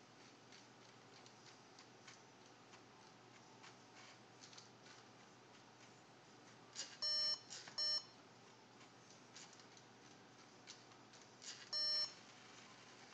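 Electronic beeps from the LEGO Mindstorms NXT brick's speaker: a half-second beep and a shorter one about seven seconds in, then a third near the end. Faint scattered clicks sound in between.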